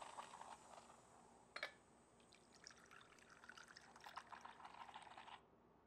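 Faint trickle of coffee poured from a stovetop moka pot into a ceramic cup, stopping suddenly near the end. A single light click comes before the pour.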